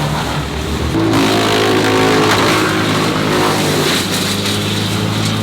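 An engine running, stepping up in pitch and getting louder about a second in, then holding a steady higher speed.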